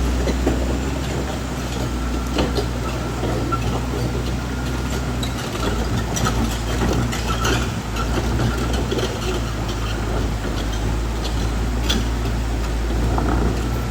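Caterpillar D6R XL bulldozer's diesel engine running as a steady low drone, with scattered clanks and knocks from its steel tracks.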